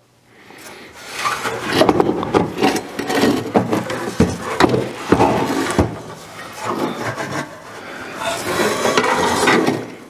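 A Suburban SF-30F RV furnace's sheet-metal case being handled and turned over on a workbench: scraping and rubbing with scattered knocks and clunks, starting about a second in.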